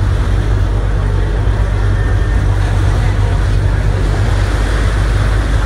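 Ferry engine running, a steady low drone with a constant hum.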